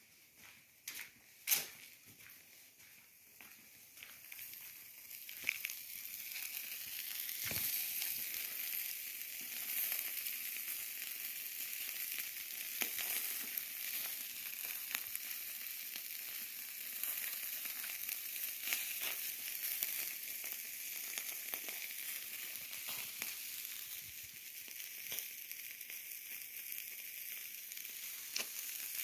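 Chicken sizzling as it cooks over high heat, a steady high hiss with scattered pops and crackles that builds up about four to seven seconds in. A few sharp clicks come before it.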